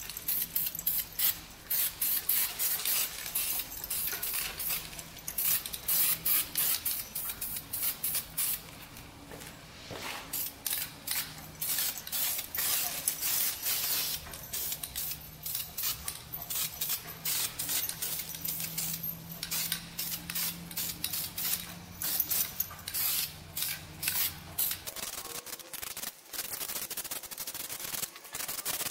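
Aerosol can of flameproof high-temperature paint spraying in many short hissing bursts, in quick runs with brief pauses between.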